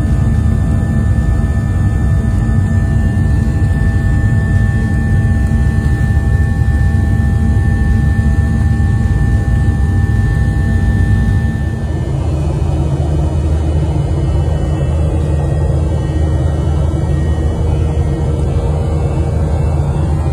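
Jet airliner cabin noise in flight: a steady low rumble with a whining engine tone on top. About twelve seconds in the whine drops away and the rumble settles slightly quieter.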